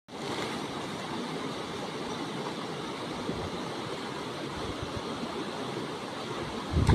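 A steady rushing noise; a louder, gusty low rumble comes in near the end.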